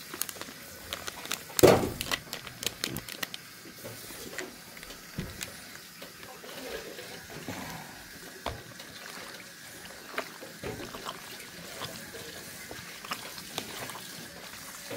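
Bare hand squishing and kneading soy-marinated sliced beef with cornstarch in a plastic bowl: wet squelching with many small clicks. A single sharp knock a little under two seconds in.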